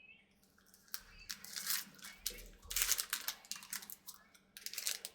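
Foil wrapper of a Pokémon card booster pack crinkling and tearing in hand, in three rustling bursts after about a second.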